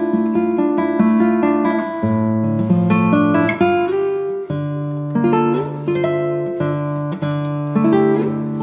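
Background music: acoustic guitar playing plucked and strummed notes with a steady rhythm.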